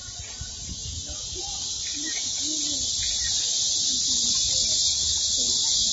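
Cicadas in the surrounding trees: a steady, high-pitched hiss that swells over the first two seconds, then holds loud.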